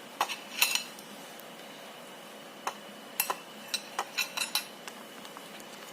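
Kitchen utensils and dishes being handled: a few light clinks in the first second, then a quick run of taps and clinks from about three to four and a half seconds in.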